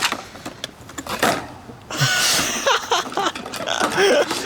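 Damaged SMC table fan, switched back on with its back cover refitted, rattling and clicking as it runs, with a sharp knock about a second in.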